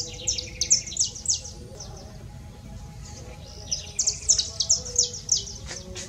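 A small finch-like songbird singing: two bursts of rapid, high chirping notes, the first in the opening second and a half and the second from about four seconds in.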